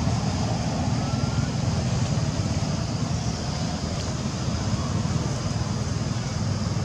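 Steady low outdoor rumble with no separate events, the kind left by wind on the microphone or distant traffic.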